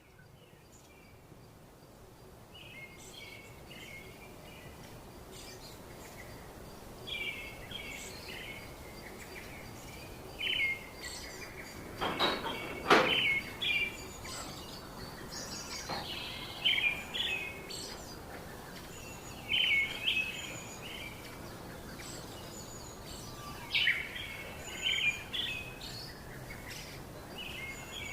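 Pet budgerigars chirping in short bursts of chatter every couple of seconds, over a steady background hiss. A couple of louder knocks come about halfway through.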